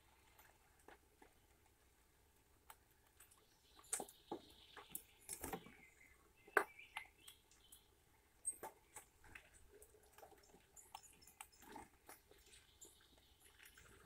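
Red squirrel eating sunflower seeds from a wooden feeder tray: faint, irregular small clicks and crunches of shells being cracked and seeds shifted, with a few sharper cracks now and then.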